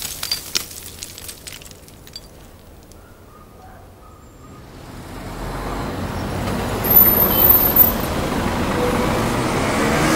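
City street traffic: buses and cars running, fading in a little before halfway and growing louder, with two louder bursts about three-quarters of the way in. Before it, a few faint clicks die away to near quiet.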